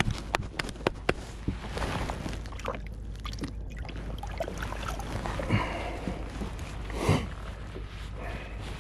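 Hands sloshing and splashing in a bucket of water, with a run of sharp clicks and knocks in the first second or so.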